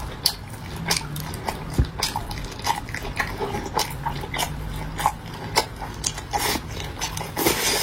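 Close-miked eating sounds: chewing and biting with many short, irregular mouth smacks and clicks.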